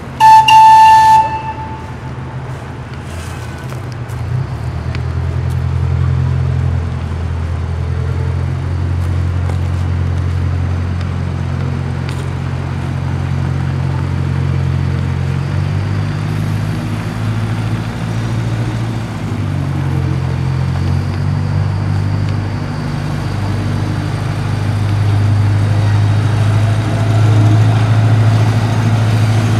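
A miniature park train sounds one short, loud toot of its horn right at the start, then its locomotive's engine runs with a steady low hum as the train rolls past, the pitch of the hum shifting about halfway through.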